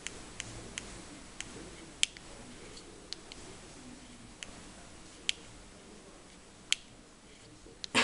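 Relays of a relay volume attenuator clicking as the volume is stepped up or down in 0.5 dB steps: about a dozen sharp clicks at irregular intervals, a few of them louder than the rest.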